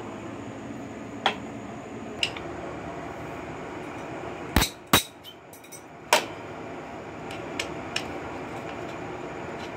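Tools and small metal engine parts being handled while the crankcase cover plug is worked loose: scattered sharp metallic clinks and knocks, the loudest two about half a second apart near the middle, over a steady background noise.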